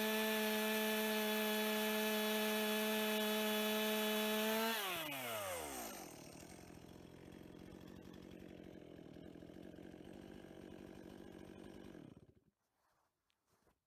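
Two-stroke chainsaw running at high revs while cutting through a cedar log. About five seconds in the throttle is released and the pitch falls away to a quieter idle, which cuts off abruptly near the end.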